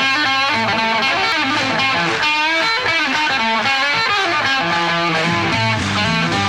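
Background music led by an electric guitar playing a quick run of notes, with a stronger bass line coming in about two-thirds of the way through.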